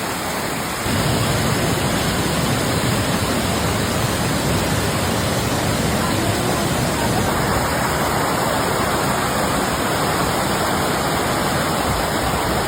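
Waterfall up close: a steady, dense rush of falling water, getting louder about a second in.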